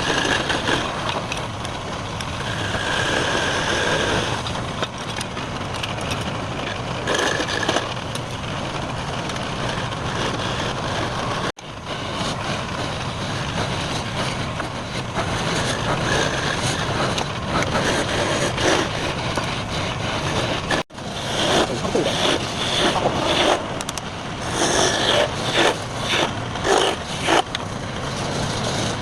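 Wood lathe running while a turning tool cuts into the spinning wood, a continuous mechanical noise with uneven surges as the tool bites. It breaks off abruptly twice, about a third and two-thirds of the way through.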